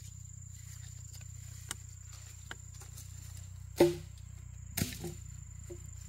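Forest ambience: a steady high-pitched insect tone over a low hum, with a few sharp clicks, the loudest a little before the four-second mark.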